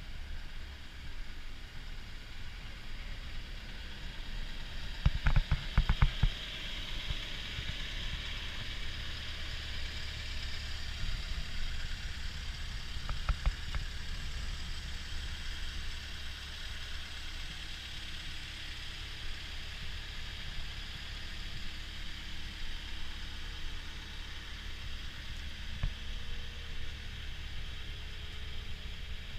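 Caterpillar 311F track excavator's diesel engine idling steadily, with a cluster of loud knocks about five seconds in and a few more near the middle.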